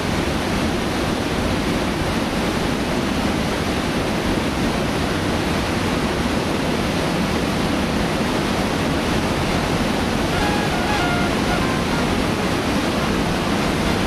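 Steady rushing of a mountain torrent through a narrow rock gorge, with faint background music coming in near the end.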